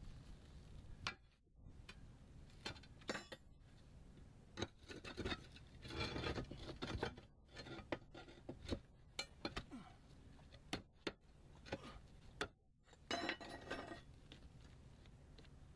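A hand tool working on metal vent flashing among concrete roof tiles: irregular light clinks, taps and short scrapes, busiest about six seconds in and again near the end.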